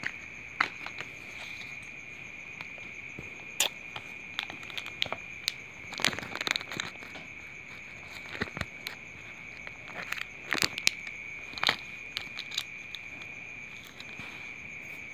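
A wallet with clear plastic sleeves being handled: scattered crinkles and clicks, the loudest about a third, two thirds and three quarters of the way in, over a steady high insect trill.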